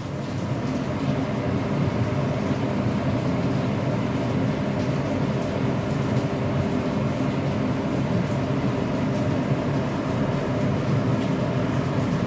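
A steady low roar with a faint hum, which comes up to full level over the first second or so.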